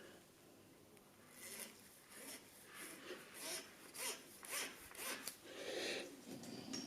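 A faint series of about ten rasping, rubbing strokes against a surface, a little irregular, like hand work on a part.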